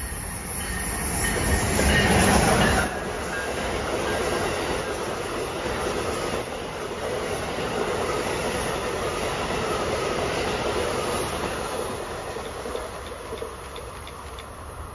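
Amtrak passenger train of Amfleet coaches passing through at speed, a rush of wheels and air. It is loudest about two to three seconds in, drops suddenly, then the coaches roll past steadily and fade near the end.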